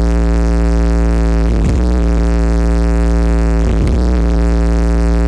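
A DJ sound system plays a loud, sustained low bass tone with a steady stack of overtones above it. The tone breaks off briefly twice and resumes at the same pitch, the kind of deep bass used in a speaker sound check.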